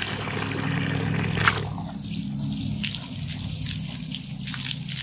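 Garden hose pouring water into a plastic bucket as it fills; about a second and a half in the stream is taken away, leaving scattered drips and trickles.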